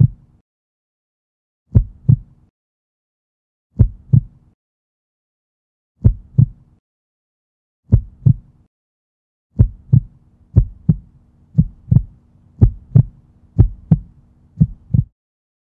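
Heartbeat sound effect: deep paired thumps in a lub-dub rhythm, about one pair every two seconds, quickening to about one pair a second from about ten seconds in, then stopping a little before the end.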